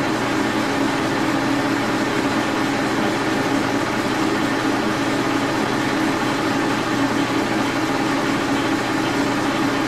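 Brown & Sharpe horizontal milling machine running steadily, its spindle turning a small drill fed into an aluminum knob to drill a shallow pin-spanner hole.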